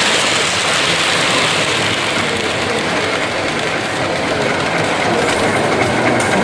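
Model train running on a layout, over a steady background noise.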